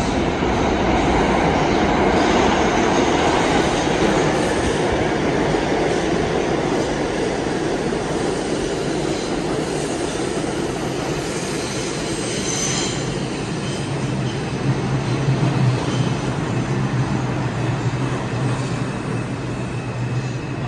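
R142 subway train rolling into an underground station and slowing to a stop, with a loud rumble of wheels on rail. There is a brief high wheel squeal about halfway through, and a steady low hum once the train has nearly stopped.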